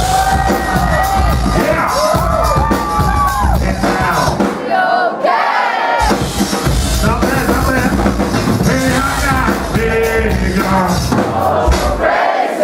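Live band music with a lead vocal over drums and heavy bass, played loud. The bass and drums drop out for about a second and a half a little over four seconds in, then come back.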